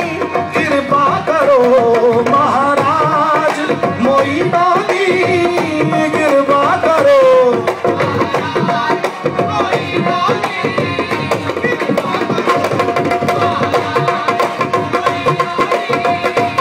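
Live qawwali: a lead voice sings a wavering, ornamented melody over harmonium and a fast hand-drum rhythm. About halfway through the voice stops, leaving the harmonium's held notes and the drumming.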